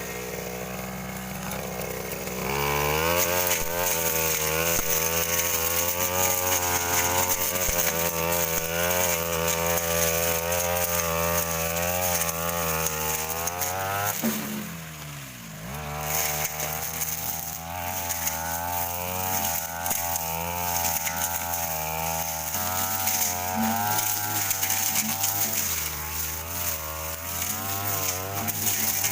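Stihl brush cutter with a Tanika blade, its engine running at high revs while clearing thick undergrowth, the pitch wavering as the load changes. About two seconds in the throttle opens up; around halfway the engine drops to idle for a second or so, then revs back up.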